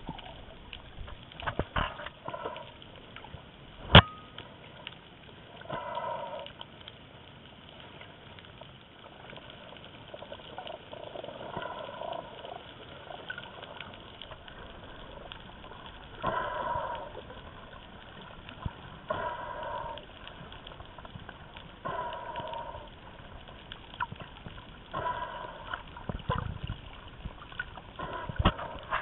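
Muffled underwater sound of water sloshing, with a snorkeler's breaths through a snorkel coming as short bursts every two to three seconds. A sharp knock comes about four seconds in.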